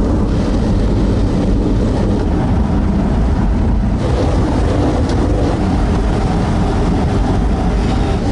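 Milan SL velomobile riding on a wet road, heard from inside its shell: a steady, loud rumble of the tyres and drivetrain resonating through the body, with a hiss of spray over it.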